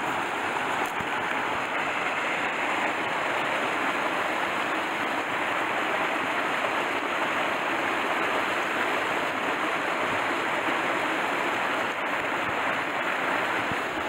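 Mountain stream rushing over rocks and small cascades: a steady, even rush of water.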